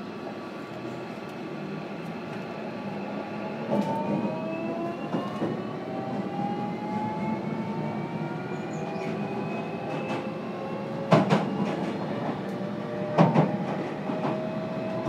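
JR Kyushu 305 series electric train heard from inside motor car MoHa 305-5: after a few seconds of steady hum the VVVF inverter and traction motors begin to whine, several parallel tones rising slowly in pitch as the train accelerates. In the last few seconds the wheels strike rail joints in a few loud clacks.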